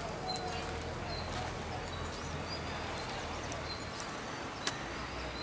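Outdoor ambience with a steady low rumble of heavy diesel machinery, small birds chirping, and one sharp knock about four and a half seconds in.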